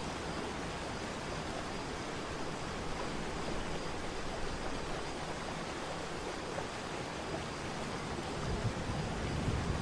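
Waterfall water rushing in a steady, even hiss, with low rumbling from wind on the microphone creeping in near the end.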